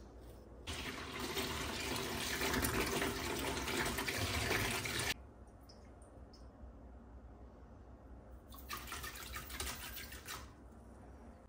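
Kitchen tap running water into the sink for about four seconds, then cutting off. Near the end, a short, grainy rattle of pink Himalayan bath salt crystals being tipped from a spoon into a plastic basin.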